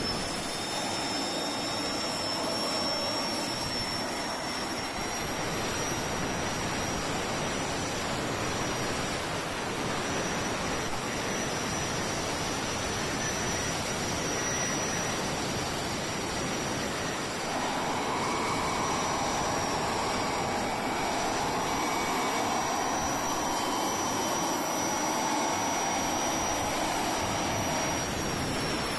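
KingTech K100-TP gas turbine running steadily on a test bench, with a high whine over a jet-like noise, while it drives a brushless generator. The sound gets louder about two-thirds of the way through.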